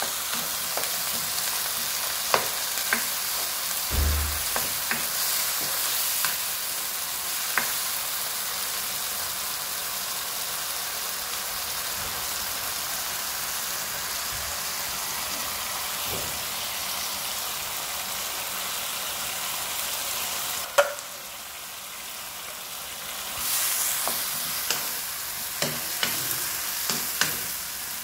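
Chopped tomatoes sizzling in oil in a wok, with a wooden spatula scraping and clicking against the pan as they are stirred. A low thump comes about four seconds in, and the sizzle drops away briefly about three-quarters through before returning.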